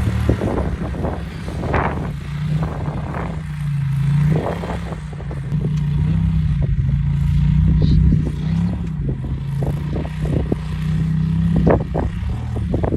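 Side-by-side UTV engine running under load as it drives a rough trail, its pitch rising and falling a little, with frequent short knocks and rattles from the machine going over rocks and ruts.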